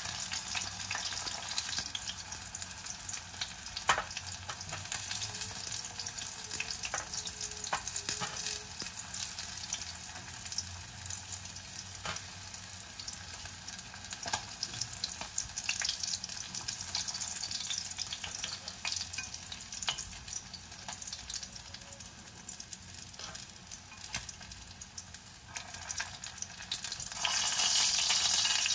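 Starch-coated fish slices deep-frying in a small saucepan of hot oil: a steady sizzle with scattered sharp crackles, getting louder near the end.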